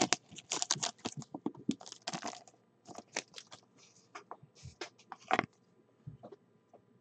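Trading-card pack wrapper crinkling and cards being handled, a run of short crackles and ticks that thins out, with a last sharp crackle about five and a half seconds in.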